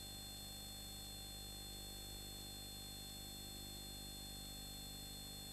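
Faint steady electrical hum with hiss; no other sound.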